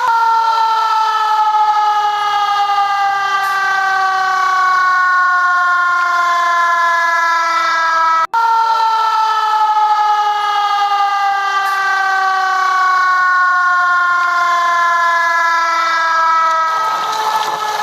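Loud siren sliding slowly down in pitch. A little over eight seconds in it cuts out for an instant, then comes back at the higher pitch and slides down again, and near the end it begins to rise.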